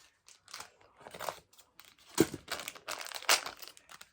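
Crinkling and rustling of plastic toy packaging being handled, in irregular bursts that grow busier in the second half, with a sharper knock about two seconds in.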